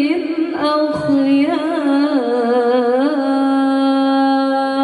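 A woman's solo voice chanting in Quranic tilawah style through a microphone, drawing out the closing salawat in an ornamented, wavering melodic line, then holding one long steady note from about three seconds in.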